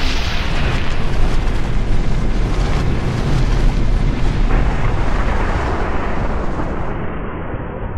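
Logo-intro sound effect: a loud, sustained rumbling roar with a hissing top, the hiss dropping away about seven seconds in.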